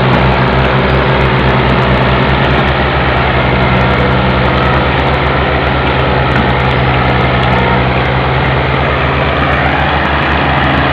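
Fiat 480 tractor's diesel engine running hard under heavy load as it pulls a trolley stacked with sugarcane. Its low, even firing pulse holds steady throughout.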